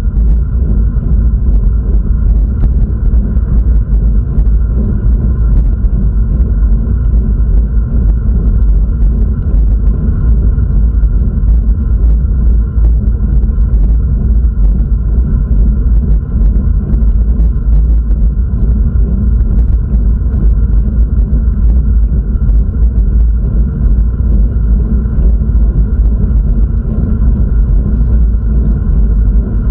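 Loud, steady low rumble of wind and road noise on the microphone of a camera on the move.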